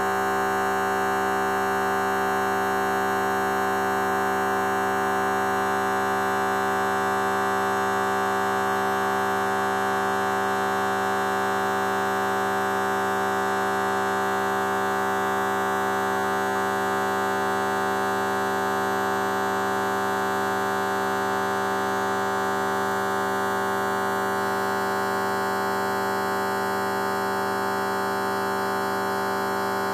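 A fart sound effect stretched out to an hour, heard as a steady buzzing drone of many held tones that barely change.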